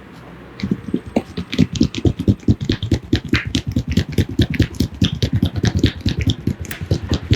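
Rapid rhythmic slapping and tapping of a barber's hands on a person's head during an Indian head massage, several strikes a second, starting about half a second in.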